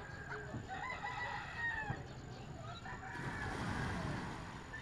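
A rooster crowing once about a second in, a long held call lasting about a second. Just after three seconds a rushing noise sets in suddenly, swells, then fades out before the end.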